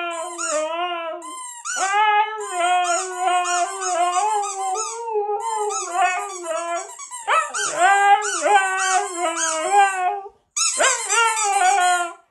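A husky howling in long, wavering, up-and-down howls, almost without pause, with a brief break about ten and a half seconds in.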